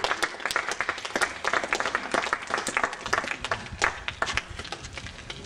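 Spectators applauding the end of a game: many separate hand claps in an irregular patter.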